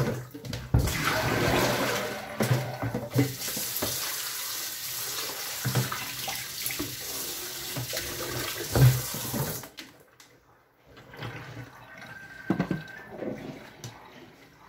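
Kitchen tap running into a stainless steel sink while plastic dishes are rinsed under it, with knocks and clatters of the dishes. The water shuts off about two-thirds of the way through, and a few quieter knocks follow.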